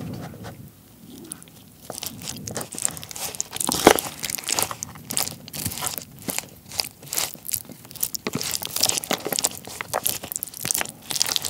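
Chopsticks stirring and mixing raw beef tartare (yukhoe) with egg yolk, gochujang and sprouts in a black plastic takeout tray: a dense run of quick clicks and small sharp sounds against the tray, starting about two seconds in, with the loudest near four seconds.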